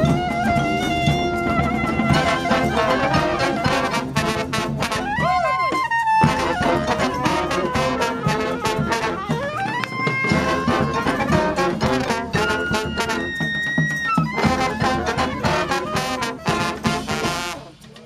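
Live street brass band playing: horns and sousaphone over drums, with a swooping slide in pitch about five seconds in. The music drops away briefly near the end.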